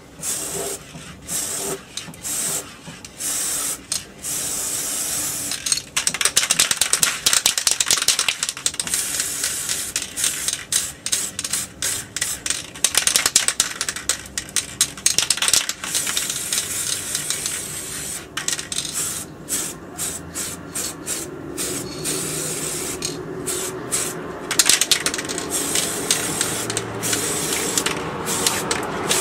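Aerosol spray paint can hissing in rapid short bursts.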